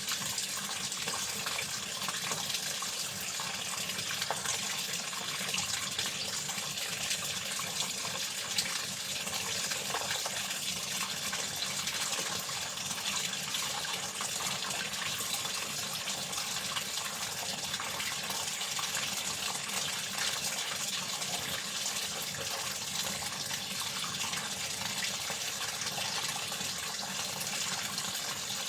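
Water running steadily from a tap, a continuous even rush without pauses.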